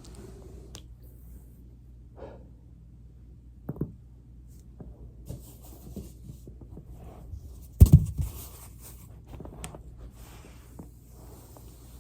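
A body shifting on a foam roller: soft rustling and small clicks, a thump about four seconds in, and a louder quick cluster of knocks about eight seconds in.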